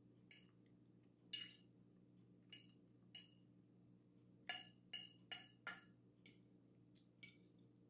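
Fork clinking against a plate as food is picked up: about a dozen short, light clinks, with a quick run of four in the middle.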